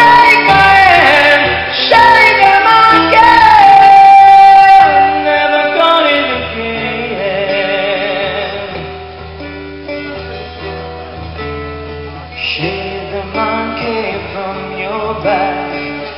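Live rock song played on acoustic guitar with a male singer's high, held, wordless vocal notes. The singing is loudest over the first few seconds, then the song drops into a quieter guitar-led stretch.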